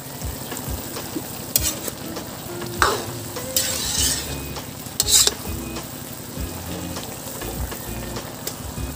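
Metal spatula stirring a pan of simmering bottle gourd and chicken in broth in a metal wok, scraping against the pan. There are several sharp scrapes over the first five seconds, loudest around three and five seconds in.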